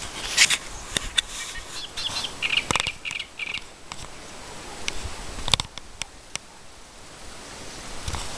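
Birds chirping with short calls in the first few seconds, over a steady outdoor hiss, with a few sharp clicks scattered through; the loudest click comes about half a second in.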